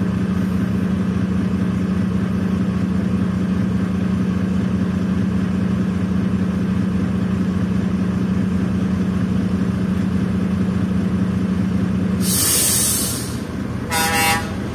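Steady hum of an idling vehicle engine, heard from inside the cab, which stops about twelve seconds in and is followed by a short hiss. Near the end a vehicle horn gives one brief toot.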